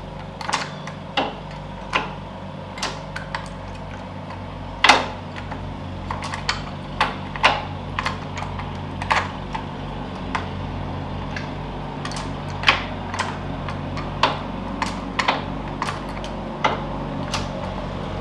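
Ferguson TED20 tractor gear lever being worked by hand through the gears, the selector clicking and clunking irregularly as each gear engages, over a steady low hum. The freshly reassembled lever is selecting all the gears cleanly.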